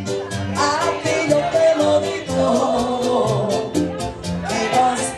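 Live bachata band: singing over guitar and bass, with a steady scraped güira beat of about four to five strokes a second.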